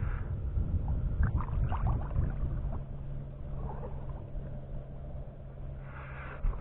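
Sounds of a fishing kayak on the water: a steady low rumble, with a few brief knocks and splashes between one and two seconds in and a sharp click near the end.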